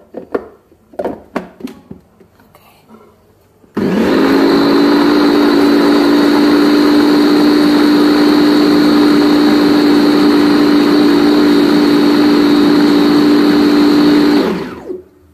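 A few clicks and knocks, then the electric blender of a Chicco baby food maker starts about four seconds in and runs loud and steady for about ten seconds, puréeing cooked vegetables with a constant hum and whine, before winding down and stopping near the end.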